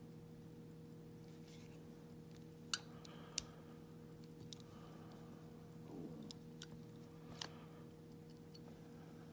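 Small metallic clicks and faint scraping from a brass pin-tumbler lock cylinder being handled and worked. One sharp click about three seconds in is the loudest, with a few softer ones later, over a steady low electrical hum.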